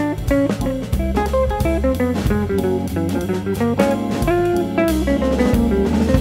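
Background music: plucked guitar over a bass line and a drum kit with a steady beat.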